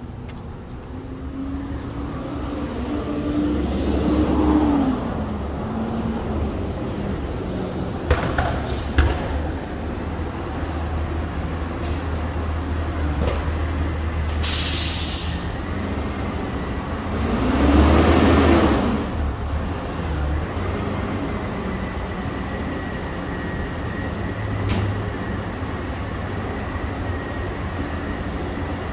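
Peterbilt front-loader garbage truck's diesel engine idling, revving up and back down twice, with a sharp air-brake hiss about halfway through and a few metallic clanks a little before it.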